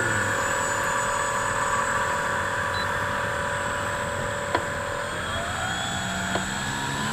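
Motor and propeller of a radio-controlled Eratix aerobatic model airplane running at a steady pitch on the ground, then rising in pitch about five seconds in as the throttle is opened for takeoff. Two faint clicks near the end.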